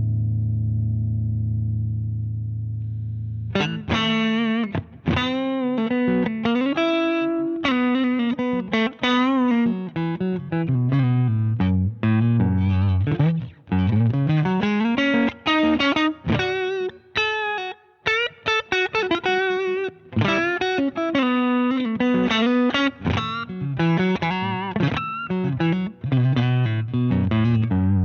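Electric guitar played through a Danelectro Transparent Overdrive V2 pedal, with an overdriven tone. A held chord rings and fades for the first few seconds, then a busy run of quick single notes and riffs with some sliding notes follows.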